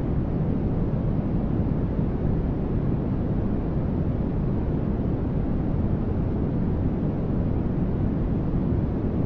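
Continuous sleep noise track, a steady deep hiss with most of its weight in the low end and thinning toward the top. It holds the same level throughout, with no distinct events.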